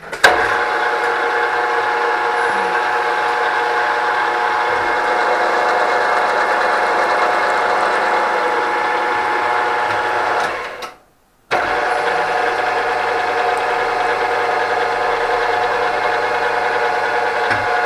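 A powered machine tool running steadily with a hum of several steady tones while tapping threads for the pulley's grub screws. It cuts out about eleven seconds in and starts again half a second later.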